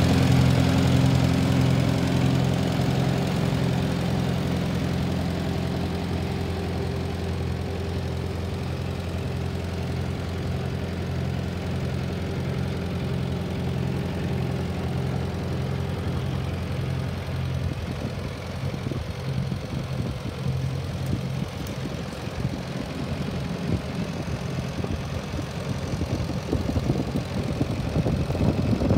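1945 Farmall B tractor's four-cylinder engine idling steadily, fading somewhat over the first few seconds.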